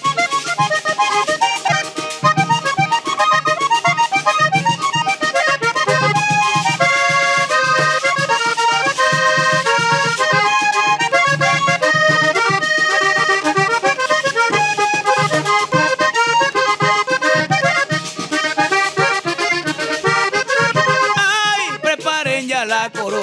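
A vallenato paseo played live: a diatonic button accordion leads the melody over a caja drum and a guacharaca scraper.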